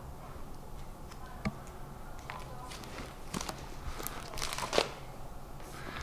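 Clear plastic binder sleeves crinkling and rustling as pages are lifted and turned, with a few light clicks, busier in the second half.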